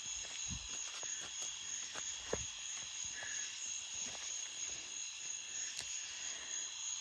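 Steady high-pitched buzzing of an insect chorus, likely crickets, with scattered soft clicks and low thumps; one knock stands out about two and a half seconds in.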